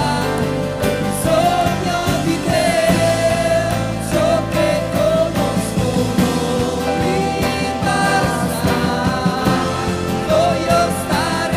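Live worship band playing a Christian worship song, with several singers at microphones singing in Italian over guitars and saxophone.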